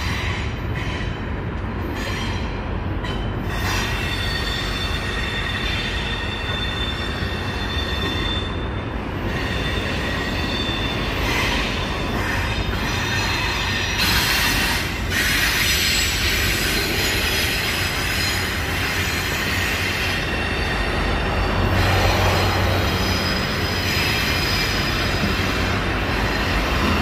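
CSX freight train rolling past on a curve, its steel wheel flanges rubbing against the rail and squealing in several high tones that come and go over a steady low rumble of the cars.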